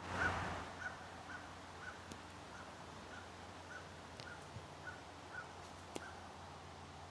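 A bird calling a series of about a dozen short, evenly spaced notes, roughly two a second, fading away about six seconds in. A brief noise at the very start is the loudest moment.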